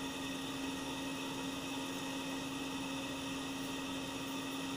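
Steady background hum with an even hiss and a few faint high tones, unchanging throughout, with no distinct events.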